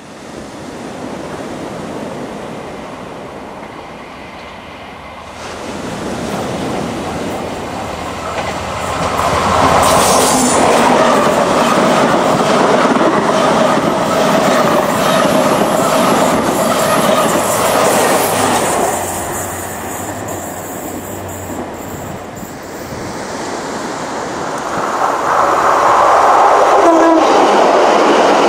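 A High Speed Train (InterCity 125) passing at speed, close by, with steady rail and wheel noise for several seconds. A second train, a diesel multiple unit, passes close by near the end.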